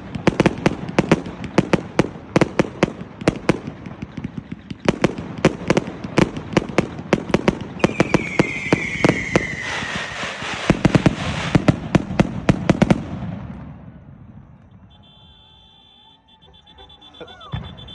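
A 228-shot Punisher firework cake firing a rapid string of bangs, with a falling whistle about eight seconds in. The shots stop about thirteen seconds in and the crackle dies away.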